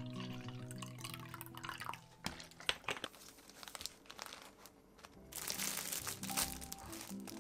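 Plastic packaging crinkling and rustling as a bag of enoki mushrooms and a packet of soba noodles are handled, in two spells, about two seconds in and again from about five seconds. Light background music plays at the start and comes back near the end.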